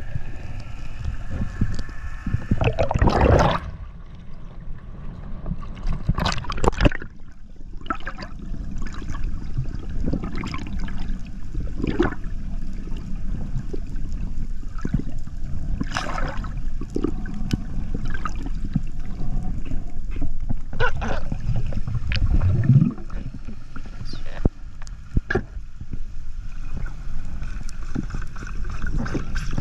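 Underwater sound through a camera's housing during a freedive: a steady low rush of water with gurgling and many short crackles and knocks scattered through it.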